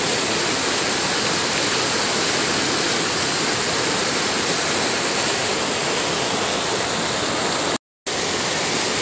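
Floodwater rushing in a swollen, muddy river: a steady, loud rush of turbulent water. The sound cuts out completely for a moment near the end, then returns unchanged.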